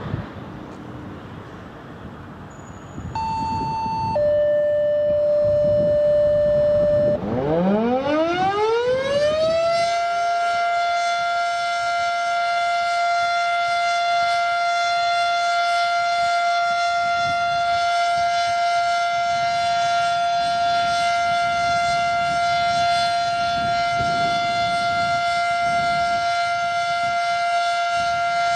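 Federal Signal Model 5 civil-defense siren winding up from a low growl to a high pitch over about three seconds, then holding one steady wail. It is preceded by dispatch radio paging tones: a short high beep, then a higher tone for about a second and a lower tone for about three seconds, which set off the siren test.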